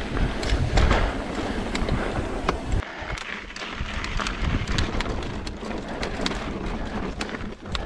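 Mountain bike rolling over dirt and slickrock: tyre crunch and a low rumble, with frequent sharp clicks and knocks from the bike rattling over the bumpy rock.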